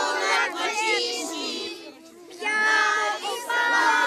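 A group of children singing together, many voices at once, with a brief break about two seconds in.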